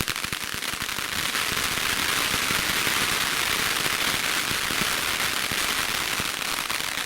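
Fireworks crackling: a dense, unbroken stream of rapid pops that builds within the first second, holds steady, then begins to thin out at the very end.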